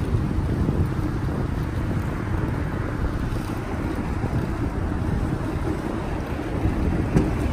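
Wind buffeting the microphone outdoors: a steady low rushing noise with no distinct events.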